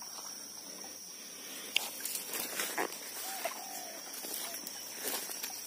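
Footsteps and rustling through tall grass, starting about two seconds in, over a steady high insect buzz. A brief faint chirp sounds about three and a half seconds in.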